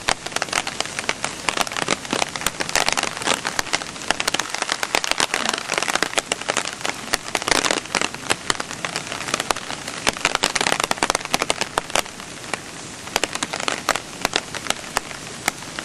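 Steady rain falling outdoors: a dense crackle of many drops hitting hard ground.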